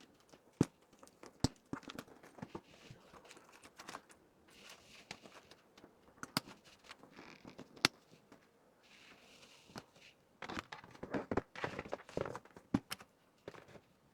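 A handbag being handled during unboxing: scattered sharp clicks and taps with short spells of crinkling packaging, busiest in a dense run of rustling and knocks about ten seconds in.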